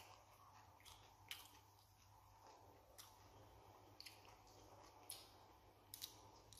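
Near silence: faint room tone with a few soft, scattered clicks.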